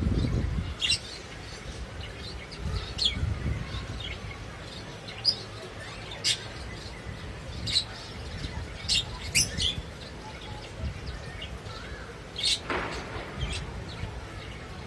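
Lovebirds giving short, sharp, high-pitched chirps, scattered irregularly about once a second.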